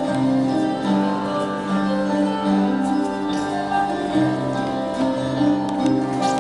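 Instrumental dance music for a historical group dance, with a melody of held notes over a steady low bass line.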